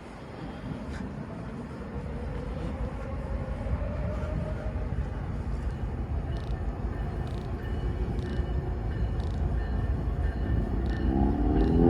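Norfolk Southern diesel locomotives approaching, their low rumble growing steadily louder. Near the end the locomotive's air horn starts to sound a chord.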